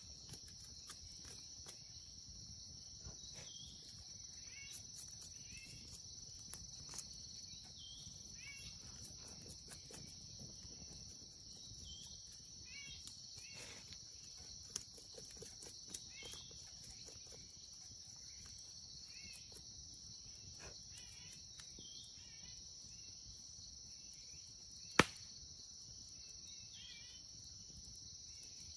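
Steady high-pitched insect drone, with short chirps now and then and small scattered snaps, and one sharp click about 25 seconds in.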